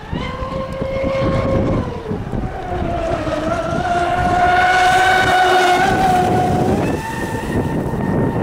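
Electric RC racing boat running flat out, its motors giving a pitched whine. The whine drops about two seconds in, holds high and strong through the middle, then shifts again near the end as the boat turns.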